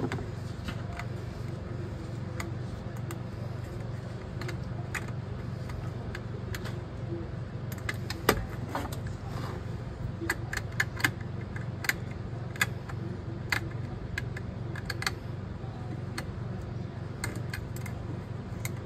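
Scattered light metallic clicks and clinks of tools and plumbing parts being handled, bunched toward the middle, with one duller knock about eight seconds in, over a steady low hum.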